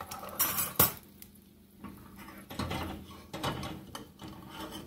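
Metal kitchen utensils being handled and set down. There is a sharp metal clank a little under a second in, then lighter, irregular clattering.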